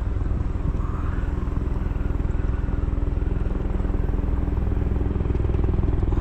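A small engine running steadily with a fast, even putter, growing slightly louder near the end.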